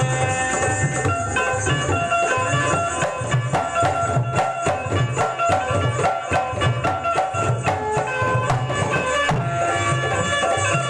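Indian devotional music on a bulbul tarang (keyed banjo) playing the melody, with tabla and a dholak barrel drum keeping the rhythm. Partway through, the drums break into a stretch of quick, dense strokes before settling back into the steady beat.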